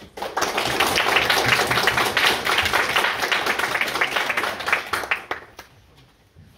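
Audience of a few dozen people applauding with hand claps, starting just after the beginning and dying away about five seconds in.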